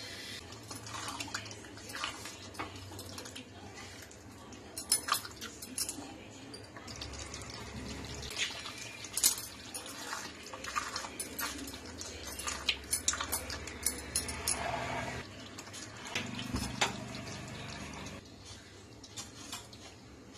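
Spatula clicking and scraping against a pan of simmering paneer gravy as cream is stirred in: irregular knocks and scrapes, a few of them sharper, over a low steady background.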